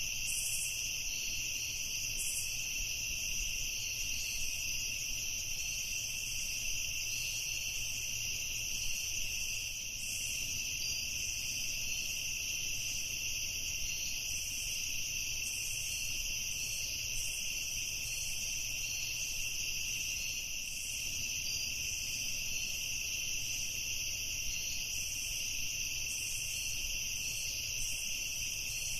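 Night insects, such as crickets, chorusing in a steady, unbroken high-pitched trill.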